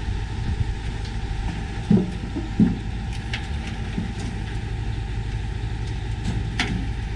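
Steady low mechanical rumble like a running engine, with two soft knocks a little after two seconds in.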